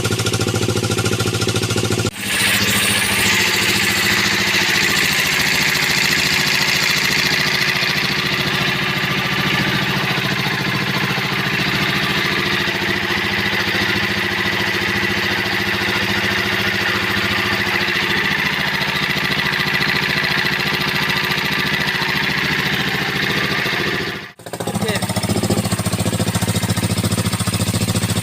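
Single-cylinder Dongfeng diesel engine running steadily through an Akrapovic racing exhaust, with a fast, hard-edged beat. The sound drops out briefly about two seconds in and again near the end.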